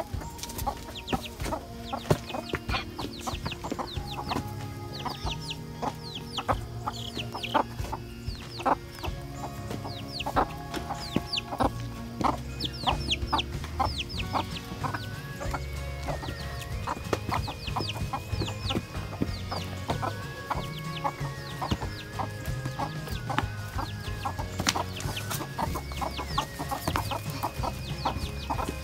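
A young chick peeping over and over in short falling cheeps, with hens clucking, over background music with held notes and a low bass.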